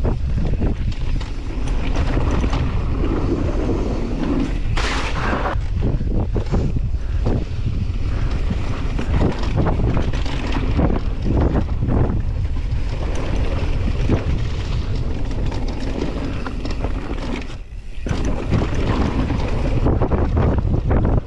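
Mountain bike descending a dirt bike-park trail at speed: wind rushing over the camera microphone with tyre rumble, and repeated knocks and clatters from the bike over bumps. The noise dips briefly about three-quarters of the way through.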